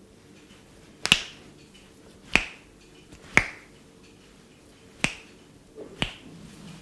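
Hair cracking during an Indian barber's head massage: tufts of hair pulled and snapped between the barber's fingers give five sharp, loud pops, about one to one and a half seconds apart.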